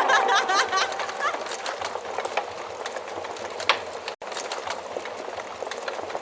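Wood fire burning in a fireplace, with a steady crackle of small clicks and a few louder pops.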